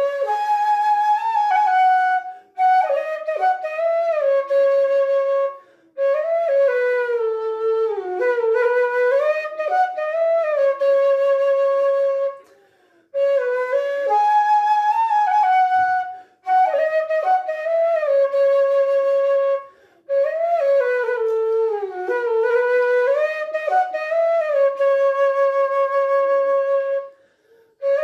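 Bamboo suling pitched in F-sharp, about 54 cm long, test-played solo. The melody comes in phrases broken by short breath pauses, with long held notes and sliding ornaments, and one phrase is played twice.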